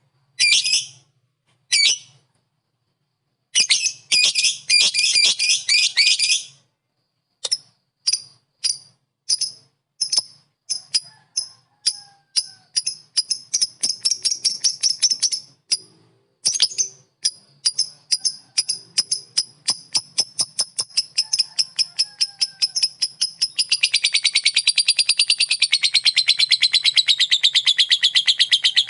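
Lovebird ngekek: long chattering song of sharp high chirps, at first in short clusters, then speeding up into an unbroken rapid run. It turns into a fast, wavering trill near the end.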